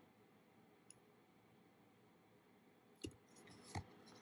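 Near silence, then a few faint clicks about three seconds in, from a coin's clear plastic capsule being handled in the fingers.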